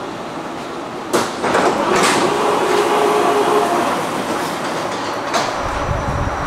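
Copenhagen Metro train at the station: a sharp clunk about a second in and another a second later, then a steady whine from the train for a couple of seconds, and a low rumble setting in near the end.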